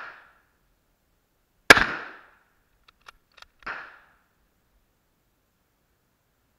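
A single rifle shot from a Yugoslav M24/47 Mauser bolt-action rifle in 7.92×57 mm, sharp and ringing, about two seconds in. It is followed by a few light metallic clicks that fit the bolt being worked. Two fainter gunshots with shorter tails come at the start and about a second and a half after the clicks.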